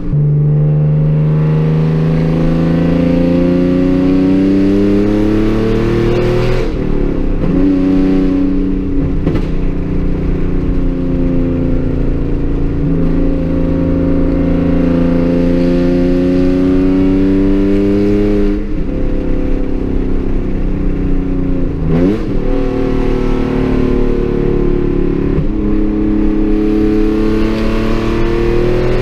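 Hyundai Genesis Coupe's 3.8-litre V6, straight-piped with J2 headers and a CNT catback, heard from inside the cabin while driving. The engine note climbs slowly in pitch as the car pulls through the gears and drops back at each of a few gear changes.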